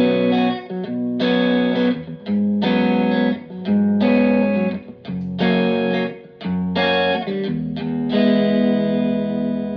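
Fender Telecaster played through a Fender Blues Junior IV tube amp, its volume at 3 o'clock and master at 2: chords strummed in turn, roughly one a second, with the last chord left to ring out near the end.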